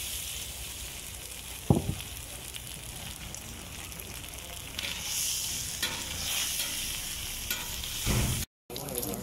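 Fat sizzling steadily on a large hot steel griddle. There is a single sharp knock about two seconds in, and metal spatulas scrape across the griddle near the end, just before the sound cuts out briefly.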